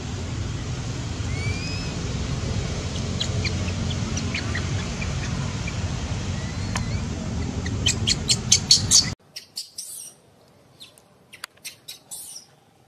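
Steady low rumble of monkey fur rubbing against the microphone, with a few faint high rising chirps and a quick run of sharp clicks just before it stops suddenly. After that it is much quieter, with scattered clicks and high chirps.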